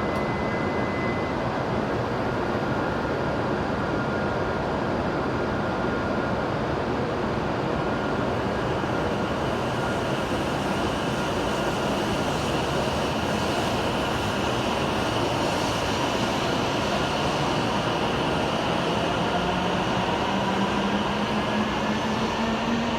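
E7-series Shinkansen train pulling out of the station: a steady rush of noise, with a whine from its motors rising slowly in pitch over the last few seconds as it gathers speed.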